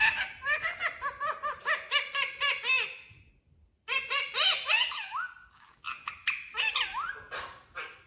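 Pet parrot chattering in three runs of quick, high syllables that rise and fall in pitch, with short pauses between them.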